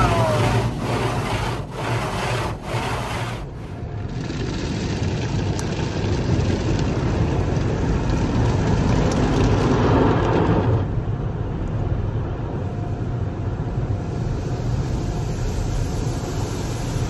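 Automatic car wash heard from inside the car: brushes sweep over the car in regular strokes for the first few seconds, then a steady rush of wash noise takes over and drops to a lower, duller steady noise about two-thirds of the way through.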